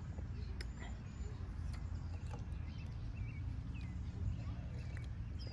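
Outdoor park ambience: a steady low rumble with faint, scattered short bird chirps and a few small clicks.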